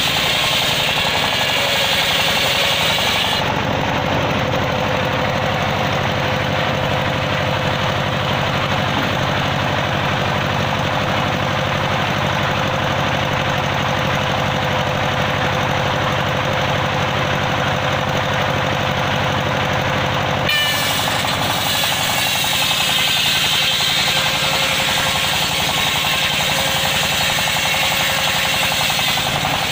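Bench circular saw ripping a teak log: a high cutting whine over the machine's steady running for the first few seconds. From about three seconds in the saw runs without cutting, and about twenty seconds in the blade bites into the wood again and the whine returns.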